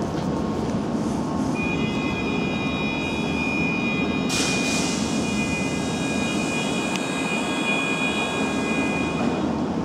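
Belgian SNCB electric multiple unit standing with its equipment running: a steady hum, joined about one and a half seconds in by a high whine of several steady tones that stops near the end. A short hiss comes about four seconds in.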